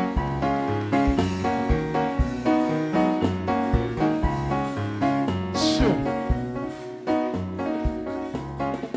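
Upbeat instrumental music: keyboard chords over a steady bass and drum beat, with a bright crash a little past the middle.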